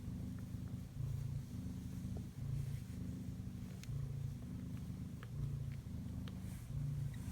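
Kitten purring steadily, the low buzz shifting in pitch with each breath in and out, about one breath every second and a half.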